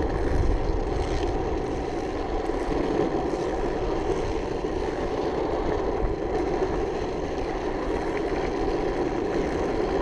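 Waveboard wheels rolling over asphalt, a steady rolling noise with low wind rumble on the microphone.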